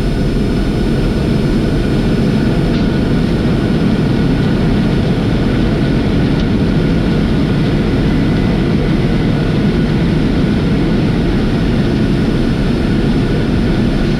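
Boeing 747-400's four jet engines in reverse thrust during the landing rollout, heard inside the cockpit as a loud, steady rumble that holds level throughout.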